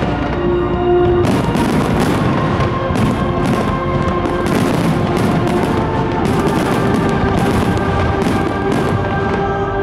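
Fireworks display set to music: sustained music plays while many shells burst and crackle in quick, irregular succession.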